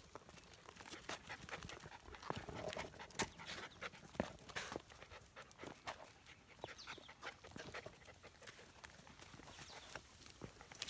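Standard Poodle puppies panting as they walk on leash close to the microphone. Irregular clicks and knocks come from footsteps and paws on the rock trail.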